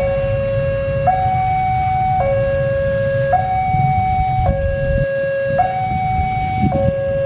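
Two-tone electronic railway warning alarm sounding steadily, a low tone and a higher tone alternating about once a second, signalling an approaching train. Beneath it is a low rumble from the approaching diesel locomotive.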